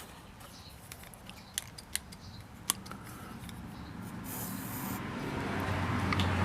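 A few sharp light clicks, like small metal parts of a chainsaw bar and chain being handled, with a brief hiss a little past the middle and a low hum that grows louder toward the end.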